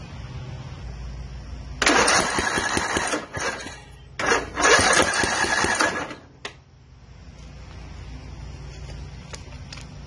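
An Ariens zero-turn mower's engine cranked on its electric starter in two bursts of a second or two each, without catching. The engine won't run despite good spark, fuel and compression, which the owner puts down to the valves.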